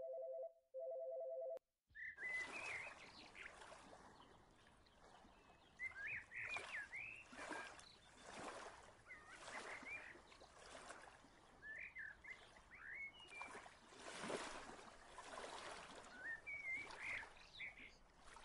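A phone rings twice with a short electronic two-note tone. The ring cuts off, and after a moment birds chirp again and again over a rushing outdoor noise that swells and fades several times.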